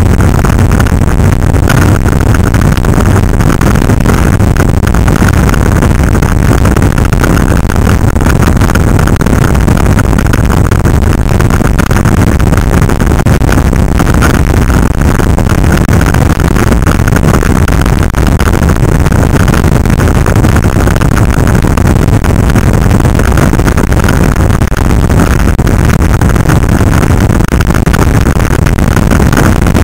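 Steady wind rush over a motorcycle-mounted microphone at road speed, with motorcycle engines running underneath it.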